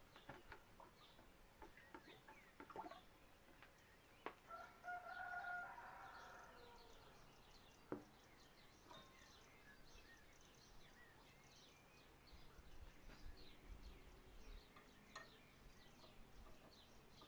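Near silence with faint birdsong: scattered short chirps throughout, and one longer call of about two seconds about four and a half seconds in. A few faint clicks.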